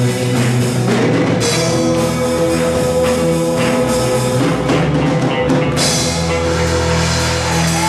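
Band music with a drum kit playing steadily and one long held note through most of it.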